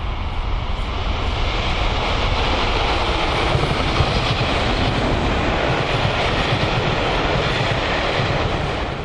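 Diesel-hauled passenger train passing close by, with a Class 37 and a Class 47 locomotive at either end of a rake of coaches: a loud, steady rumble of engines and wheels on the rails.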